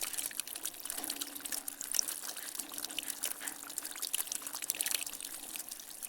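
Rainwater dripping and trickling from a gutter after rain: a quick, irregular patter of many small drips over a faint trickle.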